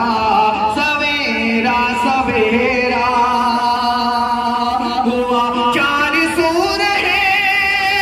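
A man's voice singing a naat, drawing out long held notes with a wavering vibrato.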